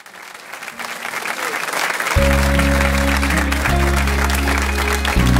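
Instrumental introduction of a gospel song fading in over a crackly hiss that sounds like applause; about two seconds in, sustained bass notes and chords come in, changing every second or two.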